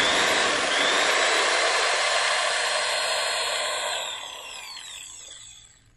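Electric drill spinning a thin abrasive cutting disc in its chuck with no load. A whine rises as it starts and it runs steadily for about three seconds. Then the whine falls away as it coasts to a stop.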